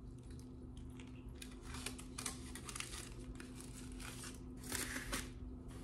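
Close-up eating sounds: biting and chewing a burrito, with crinkling of its aluminium foil wrapper, loudest a little before the end.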